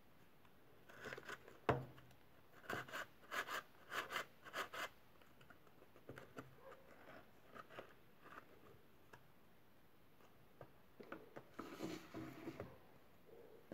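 Cardboard-on-cardboard handling of a homemade cardboard M3A1 grease gun: a sharp click about two seconds in, then a run of short scraping rubs as the cardboard magazine is worked against the magazine well, and another cluster of scraping near the end.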